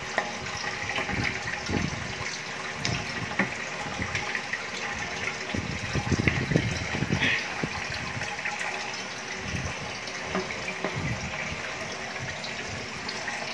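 Water from a homemade overhead aquarium filter pouring steadily back down into the tank, a continuous splashing trickle with irregular low sloshes, a little stronger about six seconds in.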